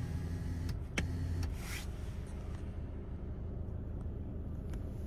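Touch-free car wash spraying pre-soak onto the car, heard from inside the cabin: a steady low rumble, two sharp clicks in the first second, and a short hiss of spray about a second and a half in.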